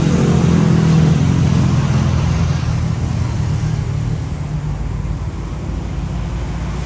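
A motor vehicle's engine passing close by, loud at first and fading away over about four seconds, its pitch dropping slightly.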